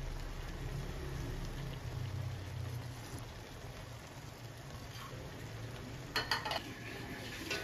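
Crabs and shrimp simmering in sauce in a stainless wok: a steady bubbling and sizzling over a low hum. A few light clicks come about six seconds in.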